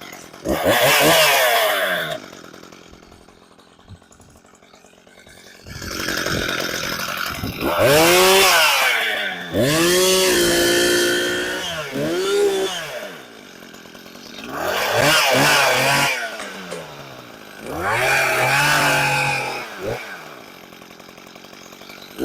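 Two-stroke chainsaw revved in about five separate bursts, its engine pitch climbing and falling back to a quieter idle between them; the longest stretch, about ten seconds in, holds a high steady speed for a couple of seconds.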